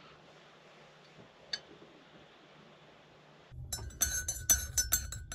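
Teaspoon stirring tea in a ceramic mug, clinking quickly and repeatedly against the sides, starting about three and a half seconds in after a faint stretch.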